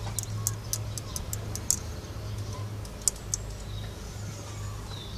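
Quick light clicks and ticks of a removed valve spring and small metal parts being handled over a Honda D16Z6 cylinder head: a rapid cluster in the first couple of seconds and two more about three seconds in, over a steady low hum.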